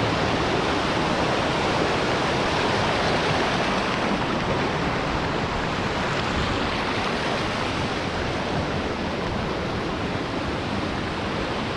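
Waterfall: a steady rush of falling water, easing slightly partway through.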